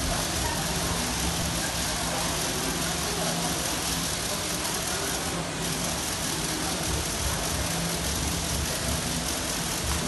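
Steady rush and patter of water falling in thin streams from a digital water curtain (graphic waterfall) into its basin, with a low steady hum underneath.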